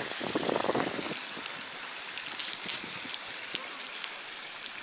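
Steady trickle of running water into a pond, with a short muffled burst near the start and a few faint ticks.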